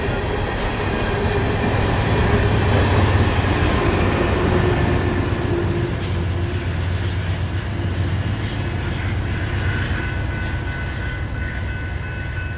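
Empty coal train's hopper cars rolling past on the rails: a steady loud rumble of wheels and cars, with faint high steady tones above it, swelling a little a few seconds in and then easing.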